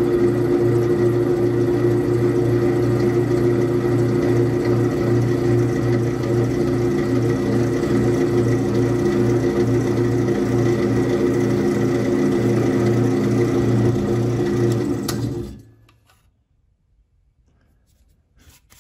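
Benchtop drill press running with a steady motor hum while a small bit drills shallow holes partway into thin plywood. The hum stops abruptly about fifteen seconds in, leaving near silence.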